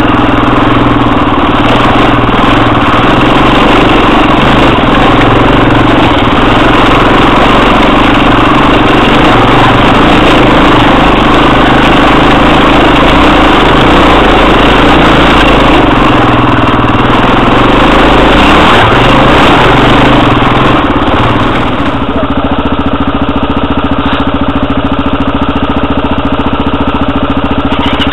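Single-cylinder four-stroke enduro motorcycle engine running loud under load on a rough trail, its pitch rising and falling with the throttle. About 22 seconds in it changes to a steadier, even engine note.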